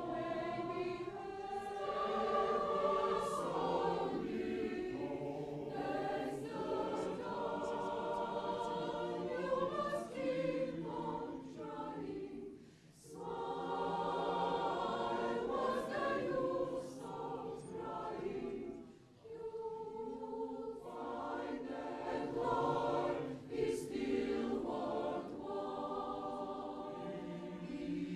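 Mixed choir singing in several voice parts, with short breaks between phrases about twelve and nineteen seconds in.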